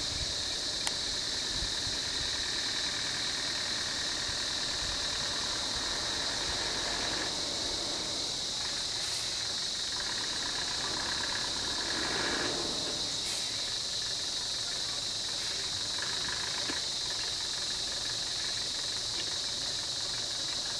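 Steady, high-pitched insect chorus, with a low vehicle engine idling underneath and a brief swell of noise about twelve seconds in.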